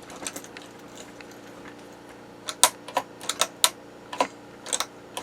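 Sharp clicks and taps of small parts being handled and fitted during assembly of a chainsaw chain sharpener. A few light clicks come at the start, then a quicker run of louder clicks begins about halfway through.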